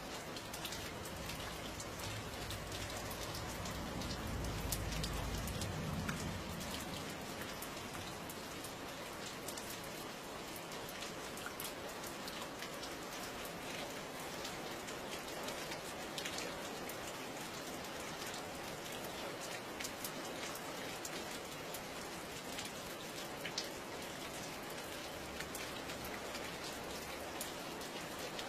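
Steady rain falling, with many individual drops ticking on a surface through an even hiss. A low rumble swells and fades about four to six seconds in.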